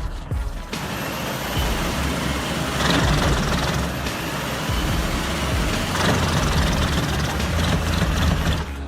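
Dual-shaft industrial shredder running under load, shredding cardboard and debris: a steady, loud mechanical din over a low engine hum, with louder surges about three and six seconds in.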